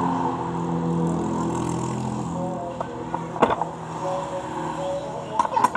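An engine running steadily, with a sharp click about three and a half seconds in and a few more clicks near the end as small switch parts are handled and pressed together.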